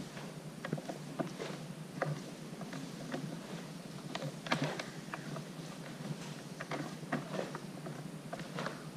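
Bare feet stepping and sliding on a wooden dojo floor and a cotton karate gi rustling and snapping as a karateka turns and punches through a kata: a string of irregular soft taps and sharp snaps, the sharpest about four and a half seconds in.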